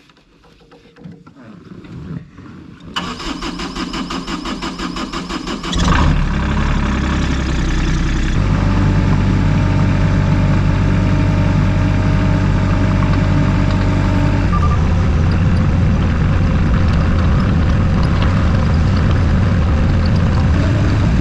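An engine cranking with a fast, even ticking for about three seconds, then catching and running steadily and loudly, its tone shifting a couple of times.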